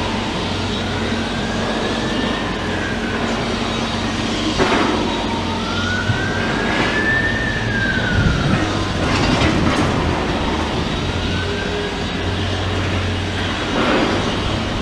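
Demolition excavator's diesel engine running with a low steady hum, with a few knocks and clanks from its attachment working at concrete rubble, about a third, two thirds and near the end of the way through. Over it, a rising-then-falling wail sounds three times, each lasting two to three seconds.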